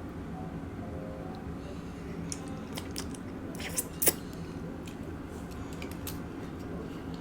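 Close-up mouth sounds of someone eating: chewing and biting with scattered short wet clicks and smacks, the loudest two about four seconds in. A steady low hum runs underneath.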